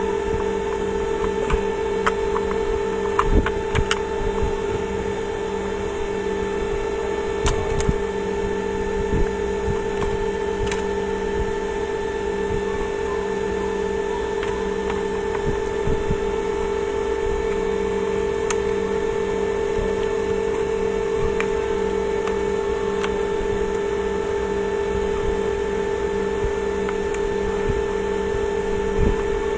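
A steady electrical hum with several fixed pitches, over scattered small clicks and knocks of plastic parts and screws being handled as the steam iron's casing is put back together. The clicks are most frequent in the first ten seconds.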